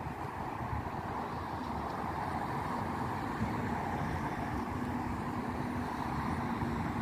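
Wind buffeting the microphone over a steady hum of distant road traffic, with a faint engine drone held through the middle.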